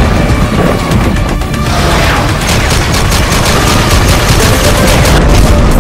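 Loud music mixed with sound effects of explosion booms and gunfire, with a rapid run of many quick shots in the second half.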